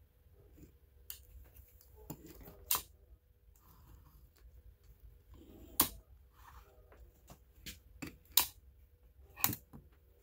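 Clicks and knocks of plastic clamp-on current probes being handled: jaws snapping open and shut around a wire and the probe bodies knocking on a wooden workbench. There are about ten scattered sharp clicks, the loudest about six and eight and a half seconds in.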